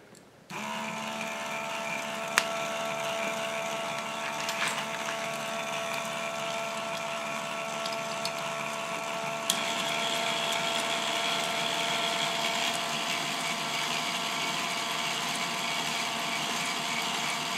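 K'nex electric motors driving a plastic gear train of differentials and shafts, running with a steady whine and gear whir. It starts about half a second in, and a higher whine joins about halfway through, a little louder.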